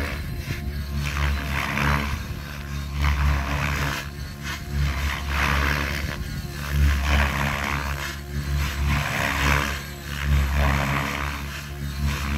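Electric RC helicopter, a Specter 700 with an Egodrift 4530HS motor and 710 mm blades, in 3D flight: the main rotor, held by the governor at about 2200 rpm, gives a steady low hum. A rushing blade noise swells and fades every second or two as it manoeuvres.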